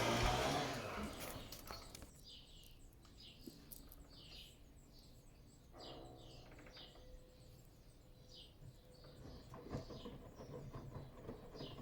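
Bosch iDos washing machine's drum motor running during a 90 °C wash, then fading out as the drum stops between tumbles. In the pause, a string of short, high, falling chirps repeats about twice a second.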